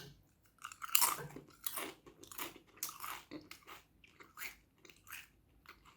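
A person chewing crunchy food close to the microphone, a run of irregular crunches.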